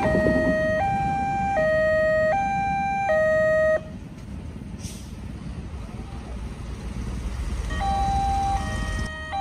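Railway level-crossing alarm from the loudspeaker horn on the crossing mast: an electronic two-tone warning switching between a low and a high tone about every three-quarters of a second. It cuts off suddenly about four seconds in, leaving a low rumble, and starts up again near the end.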